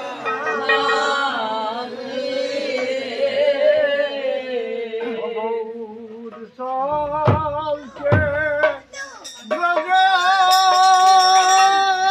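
A group of men singing a devotional chant together, accompanied by a khol, a Bengali barrel drum. There are deep drum strokes about seven and eight seconds in, and the voices then hold a long note near the end.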